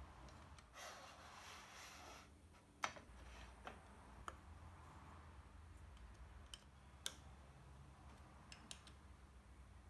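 Near silence: faint room hum with a brief soft rustle and a few faint scattered clicks, from the aluminium fence and fittings of a mitre gauge being handled on a table saw.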